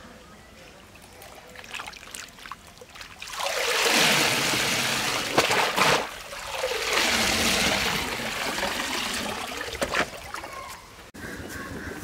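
Water pouring and splashing in two long spells of about three seconds each, the first starting about three seconds in, with a few light knocks around them.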